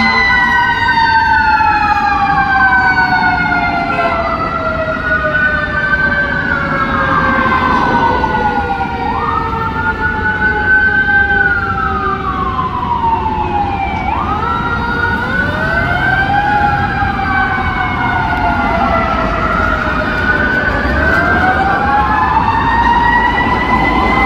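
Several emergency sirens sound at once. The fire engine's mechanical Q-siren coasts slowly down in pitch, then winds back up near the end, while electronic wail sirens rise and fall every few seconds over it, with traffic rumble beneath.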